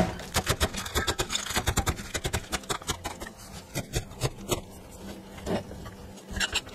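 A cleaver chopping lettuce leaves on a plastic cutting board: a rapid run of sharp knocks as the blade strikes the board, several a second, thinning to a few scattered strokes after about four seconds.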